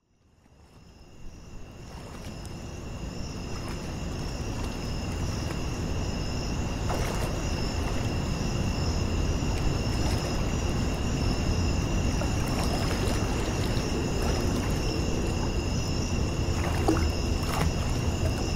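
Steady rushing water ambience that fades in over the first few seconds, with a couple of brief splash-like sounds.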